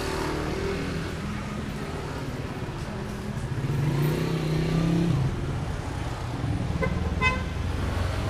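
Street traffic: engines of passing jeepneys and motorcycles rumble steadily, growing louder midway, with one short horn beep about seven seconds in.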